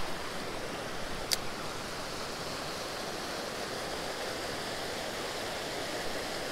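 Creek water rushing steadily over shallow riffles. One small, sharp click comes a little over a second in.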